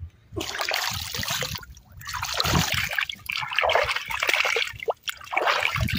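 Irrigation water splashing and running into a flooded crop furrow beneath a plastic low-tunnel cover. It comes in three stretches with short breaks about two seconds in and near the five-second mark.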